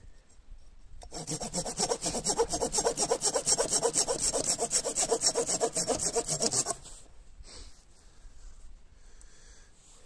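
Hand saw cutting through wood in quick, even back-and-forth strokes for about six seconds, then stopping.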